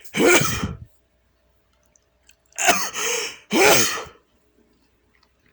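A man sneezes loudly, then gives two more loud bursts close together about two and a half seconds later.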